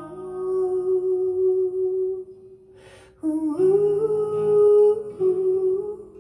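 A woman's voice carrying a slow wordless melody. One long held note fades out, there is a short pause about three seconds in, then a new phrase rises in pitch.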